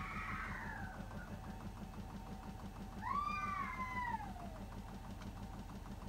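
A cat meowing twice: a long, falling call right at the start and another about three seconds in. Underneath is the steady, rhythmic low hum of a Hotpoint washing machine running its wash.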